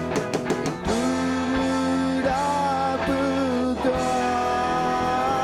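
A live rock band playing, with guitar and long held notes that bend in pitch, and a few sharp strummed strokes about the first second.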